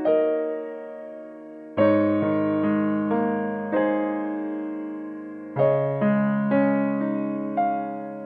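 Background piano music: soft chords struck every couple of seconds, each note ringing and fading.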